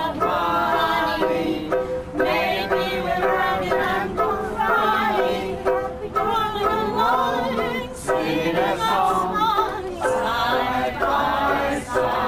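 Ukulele strummed as an accompaniment to singing.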